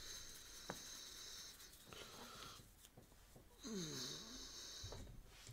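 A person's faint breathing: two long hissy breaths about three seconds apart, the second with a low voiced hum that slides down and back up, and a small click about a second in.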